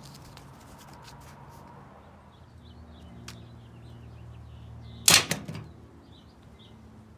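A folding knife set down on a glass-topped table: one sharp clack about five seconds in, over a faint steady low hum.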